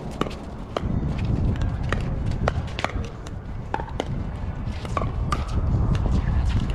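Pickleball paddles hitting a hard plastic ball during a rally, a string of sharp pops about every half second to a second, over a steady low rumble.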